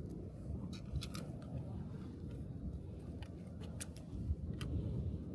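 Scattered light metallic clicks and clinks of screws, bolts and a hand tool being handled while fitting parts onto an electric bike, over a low rumble.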